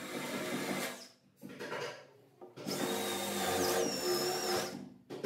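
Festool cordless drill with a spade bit boring into a wooden door panel, in three bursts. The last burst is the longest, about two seconds, and its whine shifts in pitch partway through.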